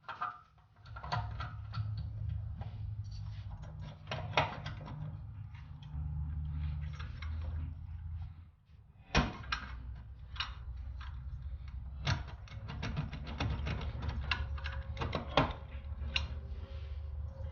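Irregular metallic clicks, clinks and knocks of engine parts being handled and fitted as a cylinder head is installed on a small single-cylinder engine, over a low steady hum.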